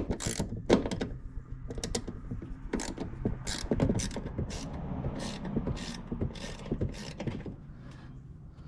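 Hand ratchet with a 1/4 socket clicking in quick, irregular strokes while backing out a bolt on a 1977 Ford LTD's heater box panel, with creaks from the fitting. The clicking stops near the end.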